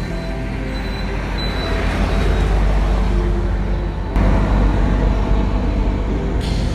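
Road traffic: a heavy vehicle's engine with a deep steady rumble, turning abruptly louder about four seconds in.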